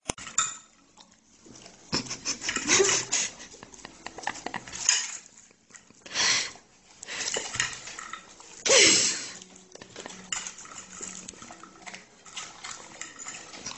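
A fork clinking and scraping on a plate while a dog eats noisily from it. There are a few louder, second-long noisy sounds about two, six and nine seconds in.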